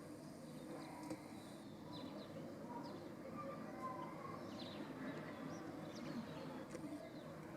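Faint, short animal calls, scattered every second or so over a steady background noise.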